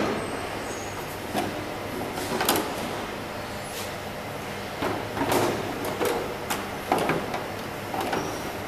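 Irregular knocks and sliding scrapes of a plastic side cover being handled and fitted onto a conveyor-belt needle detector, over a steady low background noise.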